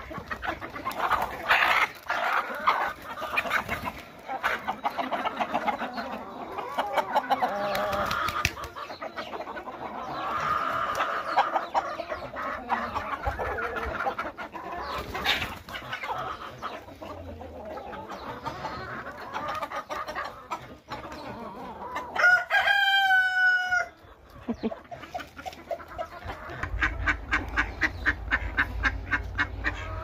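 Domestic chickens clucking and calling, with a rooster crowing once about three quarters of the way through. Quick repeated clucks and a low hum come in near the end.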